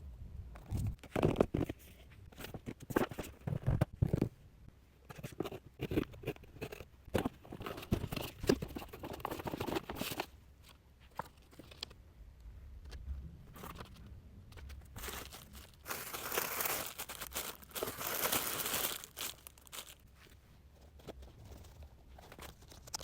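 Packaging of a parcel being handled and opened: plastic or paper crinkling and tearing, with scattered knocks. A longer, denser stretch of rustling and tearing comes about two-thirds of the way through.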